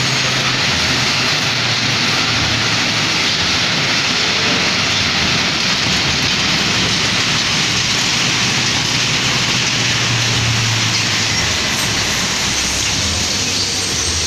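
Amusement-park kiddie car ride running, its toy cars rolling around their circular track with a steady rumble and hiss over a low hum.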